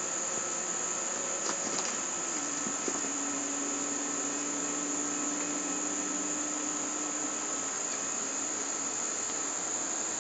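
Steady, unbroken high-pitched chorus of insects trilling, typical of crickets, with a couple of faint clicks about two to three seconds in.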